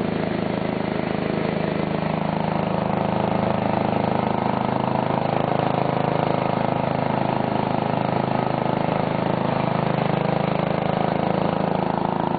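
Simplicity garden tractor's 9 hp Briggs & Stratton single-cylinder engine running steadily as the tractor drives along.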